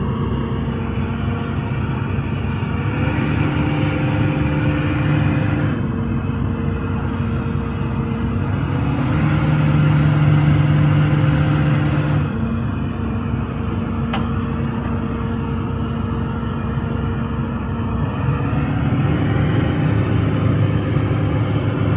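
Caterpillar 320D excavator's diesel engine running steadily, its pitch stepping up for a few seconds and settling back three times as the machine works.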